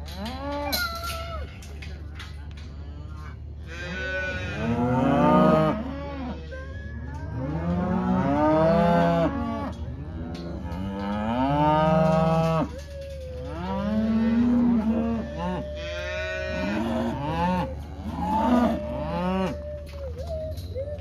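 Beef cows and calves bawling, many long calls overlapping, some deep and some higher-pitched, coming in waves from about four seconds in. This is the calling of calves and cows as the calves are sorted off from their mothers.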